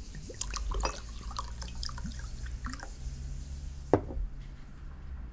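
Drinks being made: liquid poured and dripping into glass tumblers among small glass clinks and taps, with one sharp knock of glass on a table about four seconds in.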